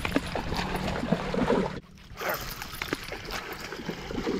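Wind rumbling on the microphone and water moving against an inflatable kayak, with scattered clicks and knocks from the rod, reel and gear being handled. Near the end, water splashes beside the kayak.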